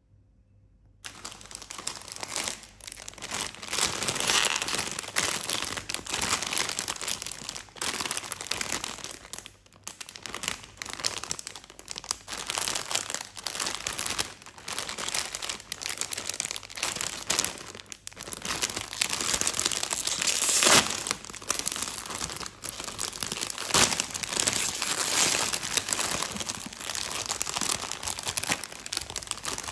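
Plastic snack packaging crinkling and crackling as it is handled: a biscuit bag and small foil-lined plastic packets being squeezed and rummaged through, starting about a second in.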